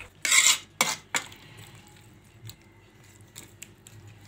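Metal spoon scraping and knocking against a steel pot while stirring chunky mango pickle: one loud scrape, then two sharp knocks about a second in, then a few faint clinks.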